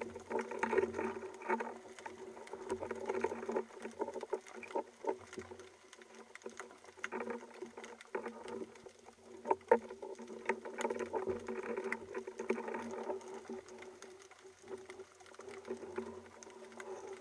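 Underwater sound through a speargun-mounted camera: a muffled hum that swells and fades every second or two, with many scattered clicks and knocks as the speared fish and spear gear are handled.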